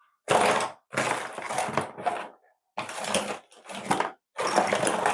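Small plastic construction-kit parts clattering and rattling as they are rummaged through, in about five bursts of dense clicking with short pauses between.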